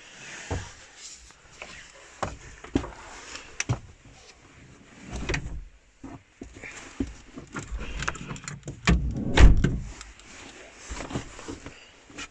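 Irregular knocks, clicks and clatter of someone moving about and handling things inside a small van, with a heavier thud about nine seconds in.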